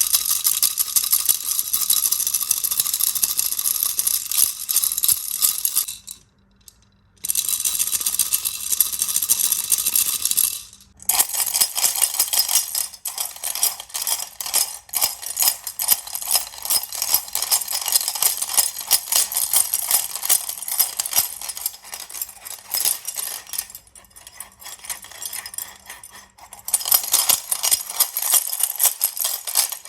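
Baby's toy rattle shaken rapidly and steadily, a dense clicking patter of loose beads. It stops for about a second some six seconds in and again briefly near eleven seconds, then carries on with a slightly fuller tone.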